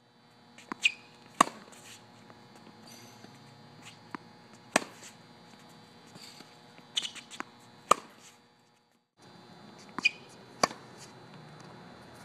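Tennis ball struck by a racket in repeated groundstrokes, each hit a sharp pop every few seconds, with softer ball bounces and short shoe squeaks on the hard court in between. A faint steady hum runs underneath, and the sound cuts out briefly about nine seconds in.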